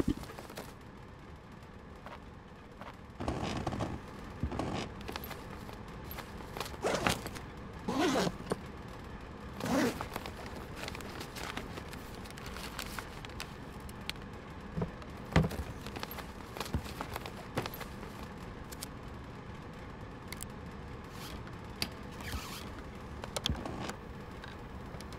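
A fabric laptop bag being unzipped and handled, and a laptop taken out and set on a desk: scattered zipping, rustling and scraping noises with a few light knocks, over a steady low hiss.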